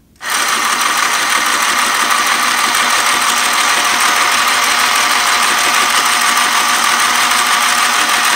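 Small budget sewing machine with its cover off, running steadily under power: an even, loud motor buzz from its small motor and all-plastic gears, starting at once and holding a constant pitch.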